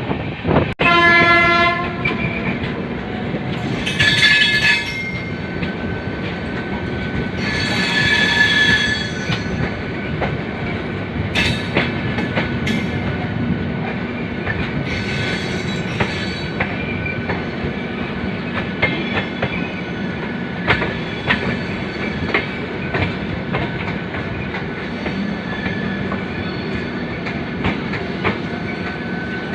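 Sadbhavna Express train running along the track with a steady rumble and clatter of wheels. A horn blast lasts about a second, about a second in, and two short high wheel squeals follow a few seconds later.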